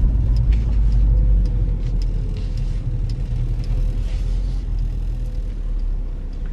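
Car engine and road rumble heard from inside the cabin while driving: a deep, steady drone with a faint steady hum above it.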